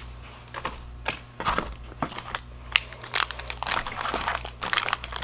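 Plastic packaging crinkling as it is handled, in irregular short crackles that come thicker toward the end.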